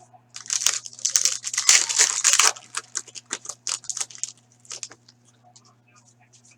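A foil trading-card pack wrapper being torn open and crinkled, a dense burst of crackling for about two seconds followed by scattered sharp crinkles as it is handled.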